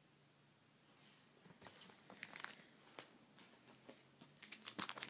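Foil booster pack being handled: faint crinkles and clicks begin about a second and a half in and grow busier near the end.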